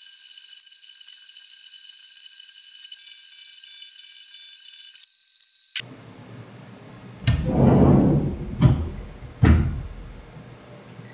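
Haas TM-1P CNC mill cutting copper under flood coolant: a steady hiss of coolant spray with high whining tones, which stops abruptly about six seconds in. Then comes a loud rumbling slide of about a second as the mill's enclosure door is opened, followed by two shorter knocks.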